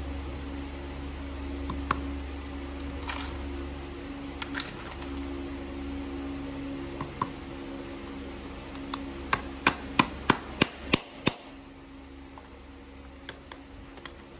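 Farrier's driving hammer tapping a horseshoe nail through the shoe into the hoof: a quick run of about seven sharp metal taps, roughly three a second, a little over halfway through, with a few lighter clicks before it. A steady low hum lies underneath.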